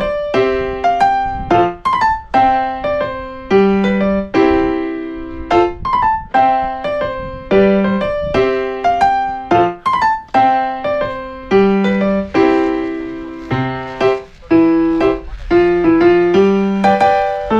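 Background piano music: a gentle melody of struck notes over a steady rhythm.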